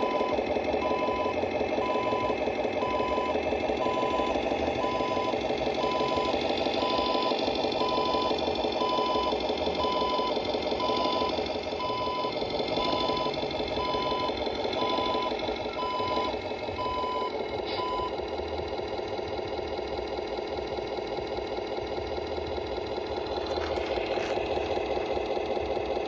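Tamiya Scania 770 RC truck's sound unit playing a simulated diesel engine running, thin and without much bass through its small speaker. A reversing beeper sounds about once a second along with it, stopping about two-thirds of the way through.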